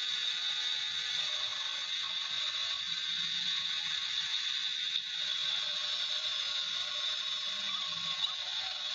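A steady, continuous machine noise from workshop work on a metal part, high-pitched and hiss-like.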